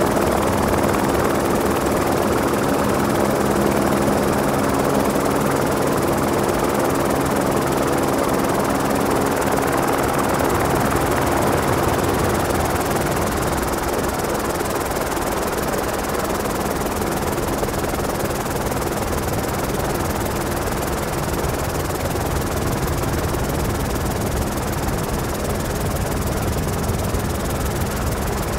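Helicopter running steadily, heard from aboard: a dense rotor-and-engine noise with a few steady hum tones that fade in the middle and come back near the end.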